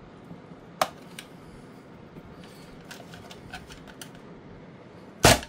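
Small metal clicks and ticks as a screwdriver tip and fingers work at spade connectors held on by their locking retainers, then one loud sharp clack near the end.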